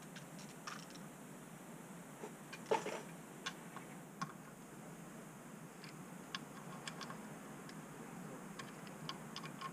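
Light, irregular clicks and ticks of hands and small tools working on a motorcycle's open clutch, the parts and bolts of the Royal Enfield Himalayan clutch knocking together, with one louder clatter about three seconds in.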